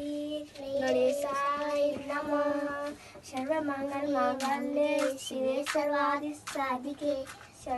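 A girl singing a devotional song for a puja, in slow, long-held notes with short breaks between the phrases.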